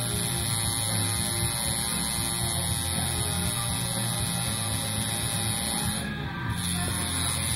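Background music over the steady electric buzz of a coil tattoo machine working on skin.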